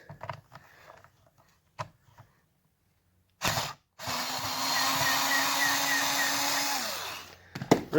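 Small cordless screwdriver motor (Performax 4-volt lithium-ion) running steadily for about three seconds, driving a screw out of plastic, then winding down with a falling pitch. A few handling clicks and a short rattle come before it starts.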